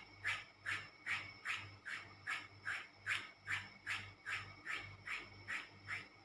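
A bottle cap is scraped over bare skin in kerokan, the Indonesian scraping remedy for masuk angin (a cold or chill). The quick back-and-forth strokes come evenly, about two and a half a second.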